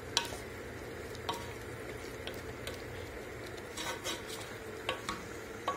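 Wooden spoon stirring diced chicken in a pressure cooker, scraping and knocking against the metal pot about eight times at uneven intervals, over a steady sizzle of the chicken cooking in a little water.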